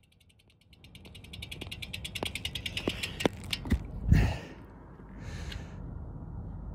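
Bicycle freewheel hub ticking rapidly as the bike coasts, then a phone falls off the bike and clatters on the road: a run of sharp knocks ending in one heavy thud about four seconds in.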